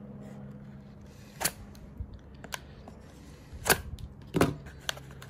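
Retail packaging of a pocket knife being handled and worked open: a handful of sharp plastic clicks and snaps, the loudest two a little past the middle.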